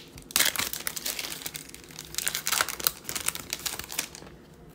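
Foil trading-card pack wrapper crinkling as it is torn open and handled while the cards are slid out. There are two bursts of crackling, about half a second in and around two seconds in, then softer rustling.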